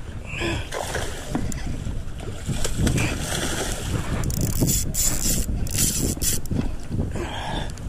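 Wind buffeting the microphone: a steady low rumble, with louder bursts of hiss about four to six seconds in.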